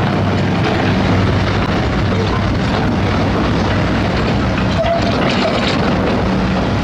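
Diesel engines of heavy construction machinery (excavators and drilling rigs) running steadily, with a continuous low engine note under loud, dense mechanical noise.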